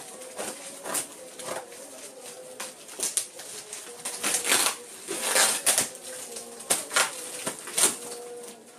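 Cardboard and plastic packaging being cut and torn open: irregular crackling and ripping, loudest about four to six seconds in.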